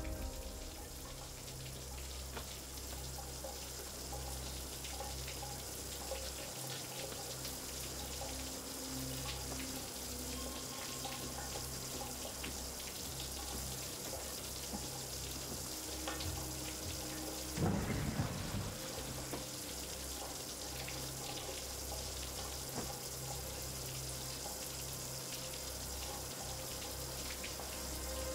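Steady hiss of water running, with a low hum underneath and one short louder sound about 18 seconds in.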